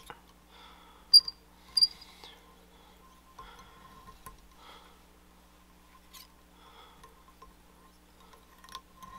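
Whip finish tool working thread at the eye of a fly hook: faint scratching and light ticks, with two sharp high clicks about a second and just under two seconds in.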